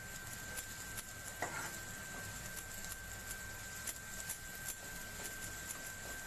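Diced carrots and garlic sautéing in butter in a nonstick kadhai, a faint steady sizzle, stirred with a steel ladle. The ladle scrapes and ticks irregularly against the pan, a little louder about one and a half seconds in and again near four and five seconds.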